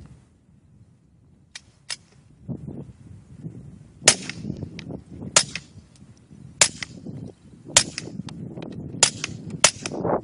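Integrally suppressed Ruger Mark III .22LR pistol (Coastal Passport 2 suppressor) fired about seven times, each shot a short sharp crack, roughly one to one and a half seconds apart. There are two faint ticks before the first shot.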